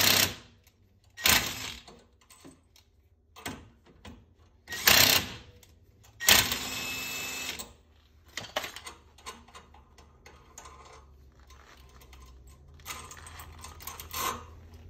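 Cordless impact wrench firing in three short bursts, the last one longer, seating new wheel studs into a front hub. After it come light metallic clinks of loose lug nuts and studs being handled.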